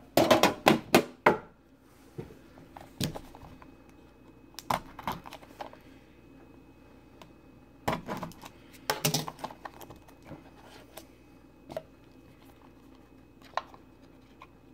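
A trading card box being opened and its cards handled: irregular sharp clicks, taps and rustles, busiest in the first second and a half and again around eight to nine seconds in.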